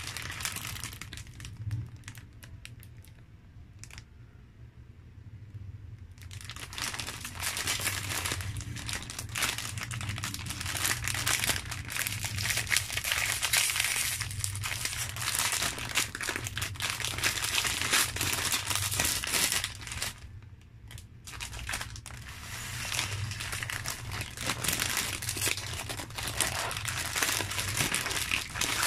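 Crinkly plastic snack-cake multipack bag being handled and opened, then the individually wrapped bars inside rustling as they are pulled out. A few light taps come first; dense crinkling starts about six seconds in and pauses briefly about two-thirds of the way through.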